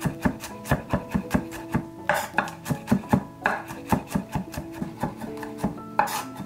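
Chef's knife rapidly mincing garlic on a wooden cutting board: a fast, even run of knife knocks, several a second, over background music.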